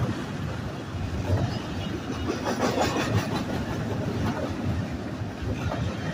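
Double-stack container cars of a freight train rolling past: a steady rumble of steel wheels on rail, with a quick run of rattling clicks about two and a half seconds in.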